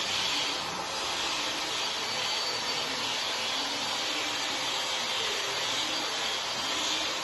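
24 V DC electric linear actuator running steadily as it lowers a glazed aluminium roof hatch closed.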